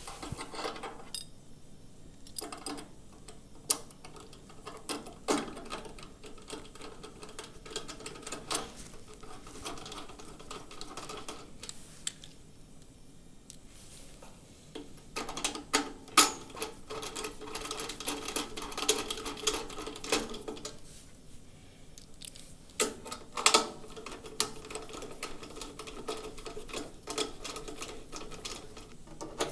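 Irregular clicks, taps and knocks of metal plinth brackets and bolts being handled and fastened to the base of a range cooker, with a steady hum in two stretches in the second half.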